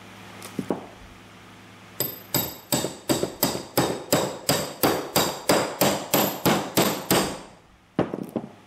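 Hammer tapping a socket used as a seal driver, in quick metal-on-metal blows with a ringing note, about three a second. The blows start about two seconds in and are followed by two more near the end. They are knocking the old oil seal out of a Johnson 40 HP outboard's lower-unit housing.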